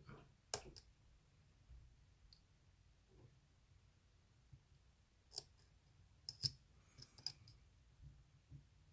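Faint, sparse metallic clicks of a dimple pick working the pins of a Mul-T-Lock dimple padlock held under tension. One click comes about half a second in, and a small cluster follows between about five and seven seconds in.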